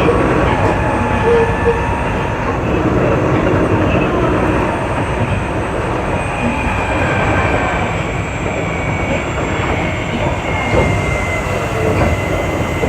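Keio 8000 series electric commuter train running on the line: a steady rumble of wheels on rail and running gear. A thin high tone drifts slightly in pitch through the second half.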